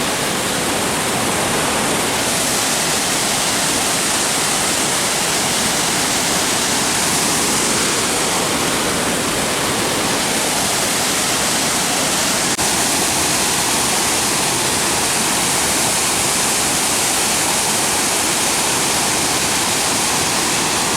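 Waterfall: loud, steady rushing of falling water, unbroken throughout.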